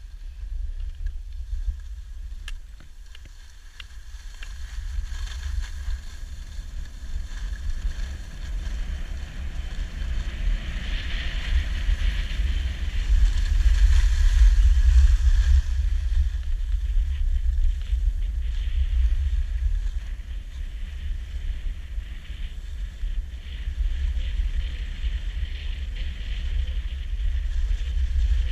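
Skis hissing and scraping over packed snow during a downhill run, with a steady low rumble of wind buffeting the camera's microphone. The hiss grows louder from about ten seconds in as speed picks up.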